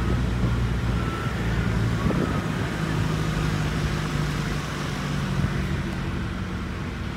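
Vehicle engine running steadily at low speed, heard from a trailer towed behind it.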